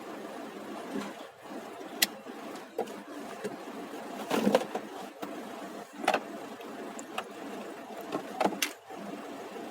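Several sharp clicks and knocks of tools and parts on a car's steering column being taken apart, with the loudest cluster about four and a half seconds in, over a steady background hum.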